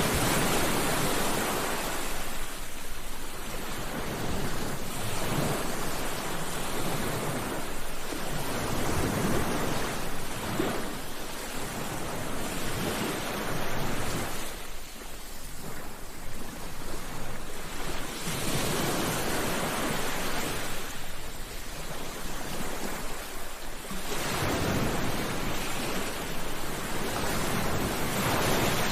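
Ocean waves breaking and washing on a beach, a steady rushing surf that swells and ebbs in long surges every few seconds.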